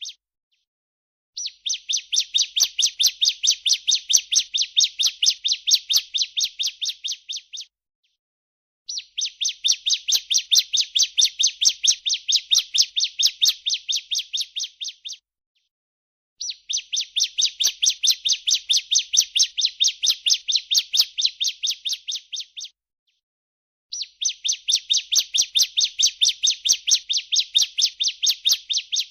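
Female bar-winged prinia (ciblek) giving its 'breeen' call: long, rapid, evenly pulsed high-pitched trills of about six seconds each, repeated four times with short pauses between.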